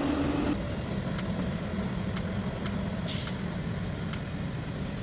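A large hydraulic excavator's diesel engine running steadily, with faint regular clicks over it.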